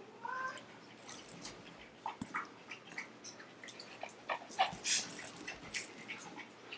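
Two Boston terriers tussling quietly over a plush toy: a brief high whine just after the start, then scattered soft breaths, mouthing and chewing on the toy.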